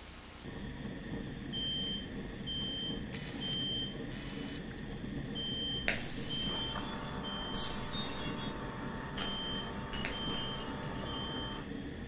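Steady low rumbling hum with short high electronic beeps in groups of three, repeating about every four seconds. A sharp click comes about six seconds in, followed by a steady mid-pitched tone.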